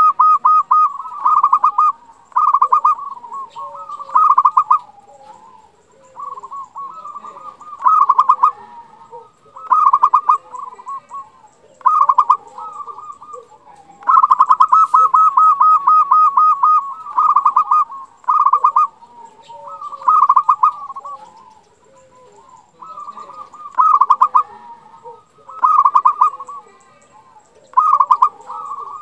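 Zebra dove (perkutut) singing: repeated phrases of rapid, stuttering coos, one every one to two seconds, with a longer run about halfway through.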